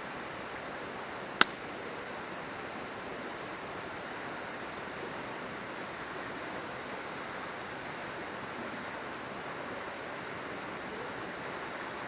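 Steady rushing of a river flowing. About a second and a half in, one sharp, loud pop from firewood burning in the campfire.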